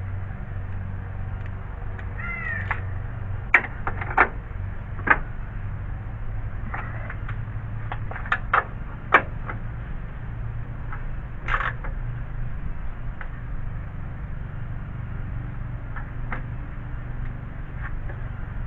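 Scattered sharp metallic clicks and taps of a socket wrench working the bolts on a car's radiator fan shroud, over a steady low hum. There is one short animal call about two seconds in.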